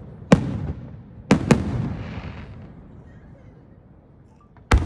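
Aerial firework shells bursting overhead. There are four sharp bangs: one about a third of a second in, two close together about a second later, and one near the end. Each trails off in a low rumbling echo.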